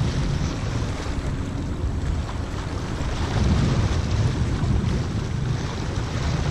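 Wind buffeting the microphone, a rough low rumble that rises and falls in gusts, over the wash of small waves against shore rocks.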